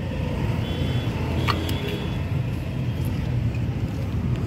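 Steady low rumble of road traffic, with a faint click about one and a half seconds in.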